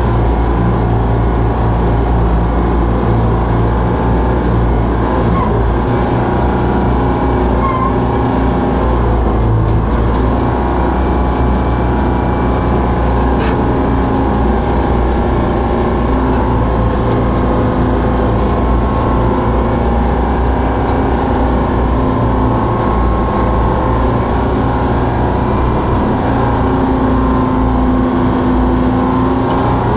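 Koehring 440 dragline's engine running steadily and loud under load through a dig cycle, heard from inside the operator's cab.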